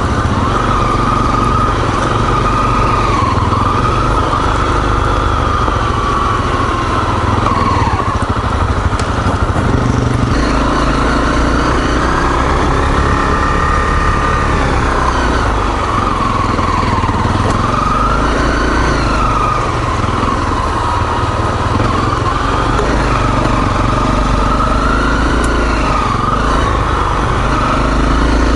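Single-cylinder four-stroke dual-sport motorcycle riding on a rough trail, its engine note rising and falling over and over with the throttle, under heavy low wind rumble on the microphone.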